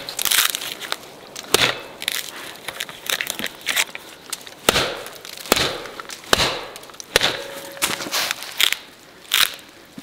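Axe head of a COMBAR multitool chopping into a thin, splintered tree trunk: repeated sharp chops into wood at irregular intervals.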